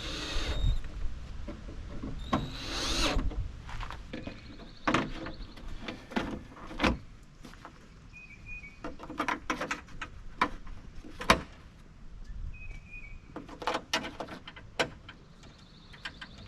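Hand work on a Jeep Wrangler TJ door while its door handle is being refitted: irregular sharp clicks, knocks and latch clatter, with a louder clatter near the start.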